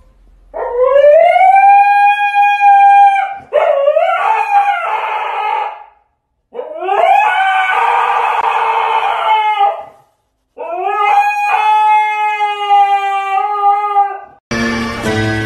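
A husky howling: four long howls with short pauses between them, each rising in pitch and then held steady. Music starts just before the end.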